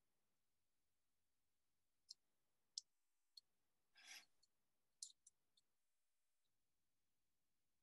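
Near silence, with a few faint light clicks and one short rustle about four seconds in.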